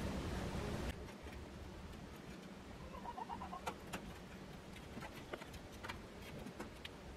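Faint clicks and taps from a small plastic solar fan being handled and hung against the wire mesh of a rabbit hutch. A low steady hum cuts off suddenly about a second in, and a quick run of bird chirps comes about three seconds in.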